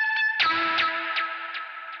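Software synthesizer patch in Arturia Analog Lab V played as a plucked, guitar-like tone: a held note, then a new note struck about half a second in that pulses about two and a half times a second and fades away.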